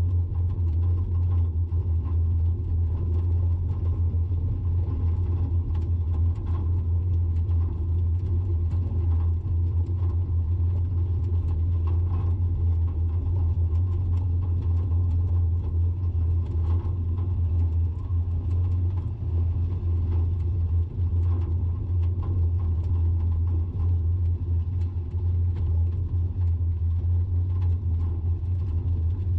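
A steady low rumble with faint, scattered ticks over it.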